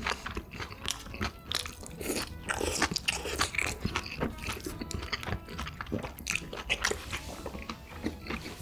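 Close-miked crunching and chewing of crisp food in irregular bites, typical of mukbang eating sounds.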